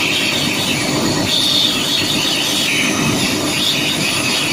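Compressed air hissing steadily out at the rear-circuit (tank 2) air brake pressure sensor port, a high, even hiss. It shows that air pressure still reaches the sensor, so there is no blockage in the air brake system.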